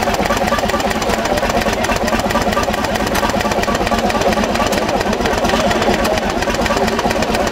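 1935 Jyden two-stroke, two-cylinder 20 hp diesel stationary engine running steadily, with a rapid, even beat.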